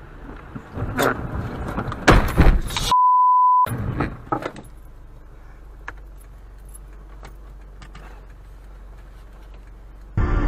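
Car crash heard from inside the car through a dash cam: a knock about a second in, then a loud crashing impact with clatter about two seconds in. A censor beep of under a second follows, and after a few further knocks only a low steady cabin hum remains. Music starts just before the end.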